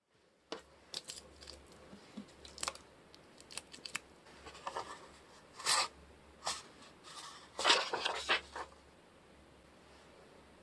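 Irregular crackles, clicks and tearing-like rustles from hands handling things close to the microphone. The loudest clusters come about halfway through and again a little later.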